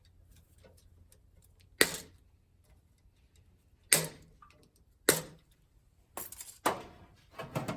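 Wire cutters snipping through the conductors of an electrical cable: three sharp snaps a second or two apart, then a flurry of clicks and rattles of handling near the end.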